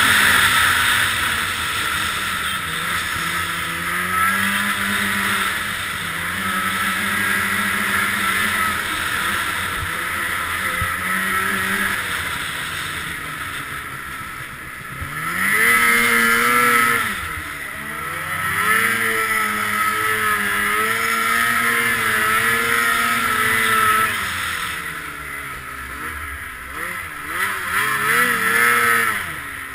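Ski-Doo 800R snowmobile's two-stroke twin engine running at speed, its pitch rising and falling with the throttle. About halfway through and again near the end it eases off and then surges back up.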